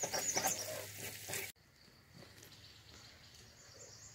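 Hot oil sizzling in a small frying pan, with a few light clinks of a fork against the pan, for about a second and a half. Then it cuts off abruptly to faint outdoor quiet.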